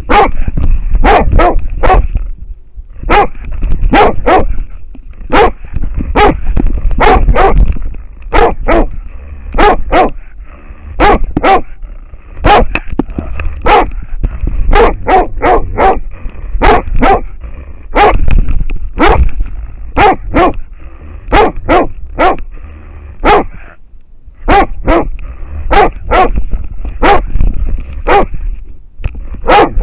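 American foxhound barking very close to the microphone, loud and repeated about one or two times a second with brief pauses. This is a hound baying at a wild boar it is holding. A low rumble from the dog's movement runs underneath.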